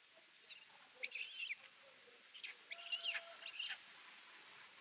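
Macaque giving high-pitched squeals in several short clusters, the loudest around three seconds in: the distress squealing of a young monkey.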